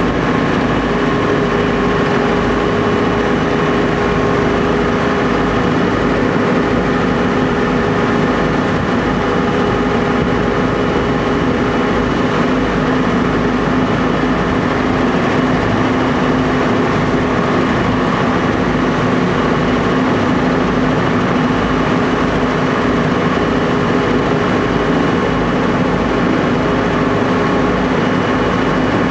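Tour boat's engine running steadily while under way: an even, loud drone with a constant hum that does not change.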